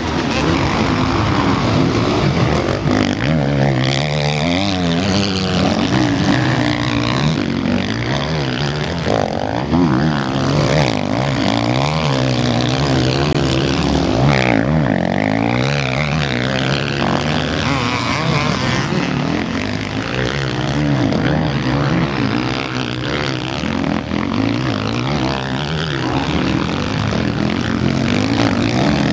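Several open-class (MX1) motocross bikes racing past, their engines revving hard and easing off through corners, with the pitch constantly rising and falling as the bikes overlap.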